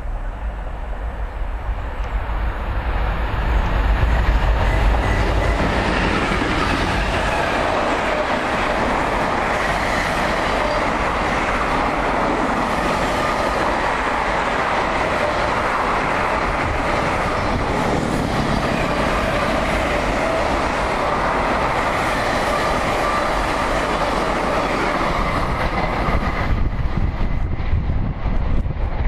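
Double-headed Class 66 diesel locomotives, two-stroke V12 EMD engines, approach and pass, loudest about four seconds in. A long train of loaded container wagons then rolls steadily past on the rails. The sound thins out near the end as the tail of the train goes by.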